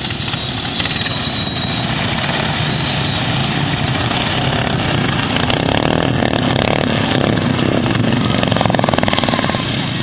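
Racing lawn mower engines running hard, a loud continuous rumble that grows a little louder toward the end, with scattered crackles in the second half.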